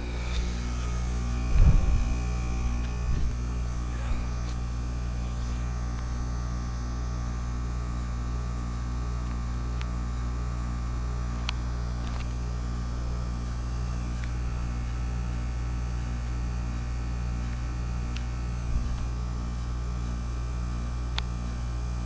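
2008 Goodman packaged heat pump running in defrost mode, giving a steady low hum. A brief thump comes about two seconds in, and a couple of faint pings come near the middle and the end.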